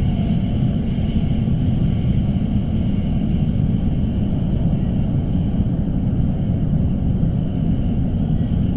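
Suspense ambience sound effect: a steady low rumbling drone with faint high sustained tones above it, unchanging throughout.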